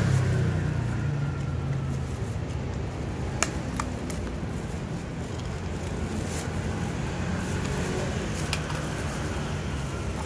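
Steady rumble of road traffic with a low engine hum, broken by a few sharp clicks.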